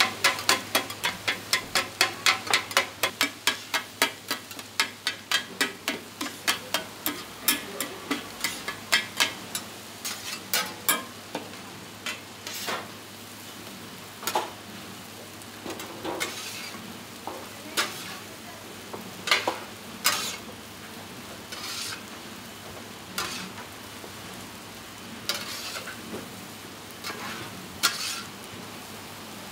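A metal spatula and scraper chop scrambled egg in a large iron pan. For about the first ten seconds there are fast metal clacks on the pan, four or five a second. After that come slower, scattered scrapes and knocks as the egg is scraped into a steel tray, over a steady hiss.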